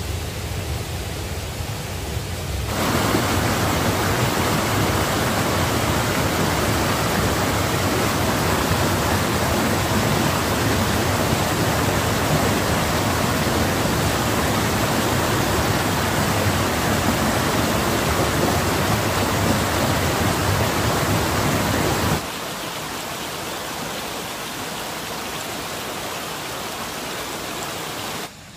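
Steady rushing noise, like running water or wind on the microphone. It grows louder and fuller about three seconds in and drops back abruptly about twenty-two seconds in.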